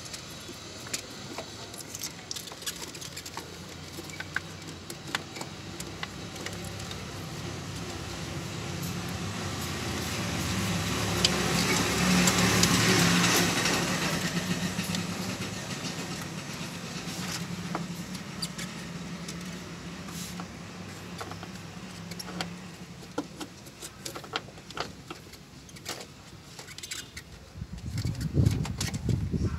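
A road vehicle passing by, its engine and tyre noise swelling to a peak about halfway through and then fading away. Scattered small clicks and knocks come from parts being handled in a car's engine bay, with a cluster of louder knocks near the end.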